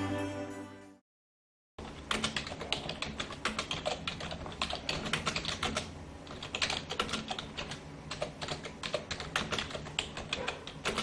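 Computer keyboard typing: rapid, irregular key clicks, starting about two seconds in after a brief silence. It is a typing sound effect that goes with on-screen text being typed out. Choir music fades out in the first second.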